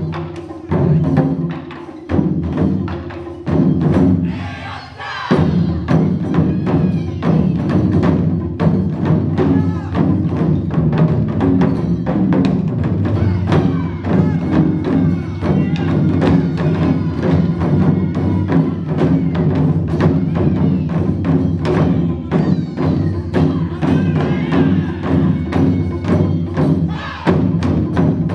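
Ensemble taiko drumming: several players strike barrel-shaped taiko drums, including a large drum on a tall stand, with wooden bachi sticks. It opens with a few heavy hits separated by short pauses, then from about five seconds in settles into a fast, continuous rhythm.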